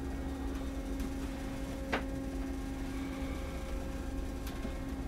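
Steady low mechanical hum of a ship's machinery, with a constant droning tone, heard inside a cabin. A single sharp click about two seconds in.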